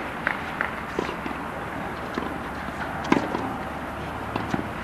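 Tennis balls struck by rackets during a rally on an outdoor hard court: a few sharp pops, the loudest about three seconds in, over a steady background hiss.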